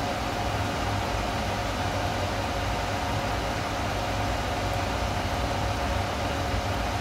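Steady electrical hum and fan-like hiss of an automatic instant-ramen cooking machine, with a constant droning tone over the hum.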